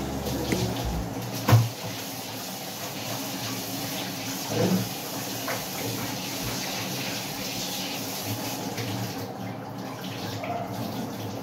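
Water running from a kitchen tap into a steel sink as the sink is wiped and rinsed. A sharp knock sounds about a second and a half in.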